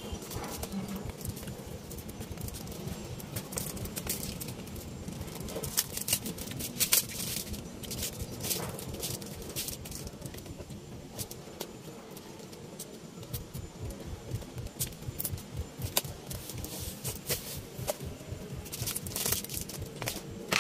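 Crinkling of foil wrappers and clicking of a clear plastic chocolate box being handled and opened, in bursts about six to nine seconds in and again near the end.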